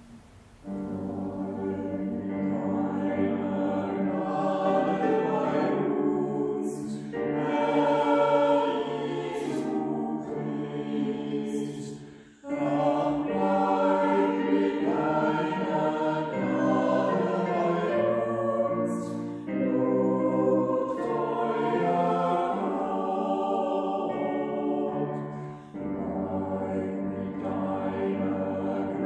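Church choir singing a slow hymn in sustained chords. It comes in about a second in and sings in long phrases, with short breaks between them every six seconds or so.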